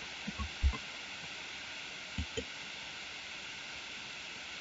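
Steady hiss of a voice microphone's noise floor, with a few faint soft taps in the first two and a half seconds.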